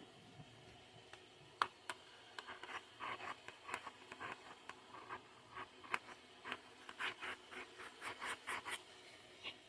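A series of short, irregular scratching or rubbing strokes, like something being scraped or written on, getting busier after the first few seconds.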